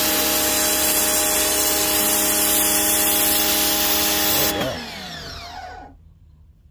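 Powryte 3800R electric pressure washer running, its steady motor-and-pump whine under the hiss of a 0-degree nozzle jet hitting concrete. About four and a half seconds in the trigger is released: the spray hiss cuts off and the motor winds down in a falling whine, stopping about a second and a half later.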